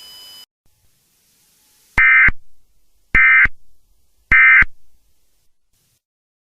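Emergency Alert System end-of-message signal: three short bursts of buzzy SAME data tone, about a second apart, marking the end of the alert.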